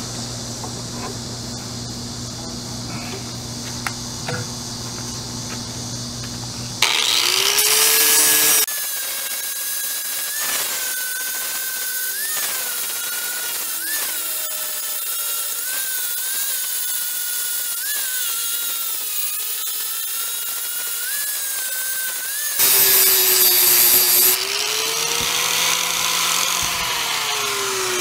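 A low steady hum, then an angle grinder starts about seven seconds in and grinds a bronze casting clamped in a bench vise. Its whine wavers and dips again and again as it is pressed into the metal, and the harshest grinding comes in two bursts, just after start-up and again near the end, before the motor winds down.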